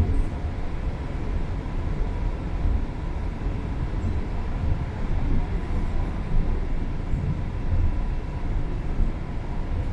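Steady rumble of a TCDD E23000 electric multiple unit (Hyundai Rotem) running along the line, with wheels on rail heard from inside the passenger carriage and a faint steady high tone above the rumble.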